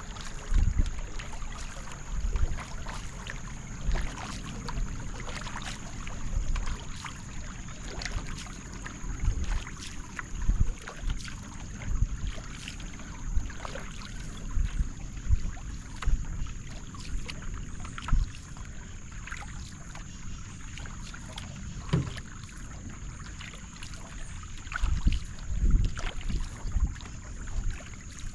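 Paddle strokes dipping and splashing beside a canoe, with water washing along the hull, in a regular rhythm of about one stroke every second or so. A steady high-pitched whine runs underneath.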